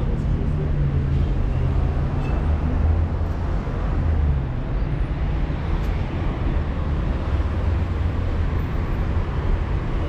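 Steady city road traffic: cars driving past on a boulevard, with a continuous low rumble.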